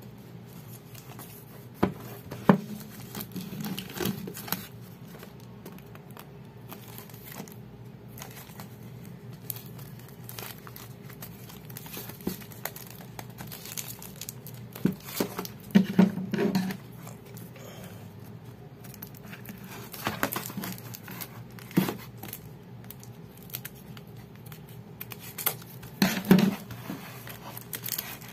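Plastic shrink wrap on a boxed card game crinkling and crackling as hands handle it and pull it off. The crackles are irregular, with louder bursts about halfway through and again near the end.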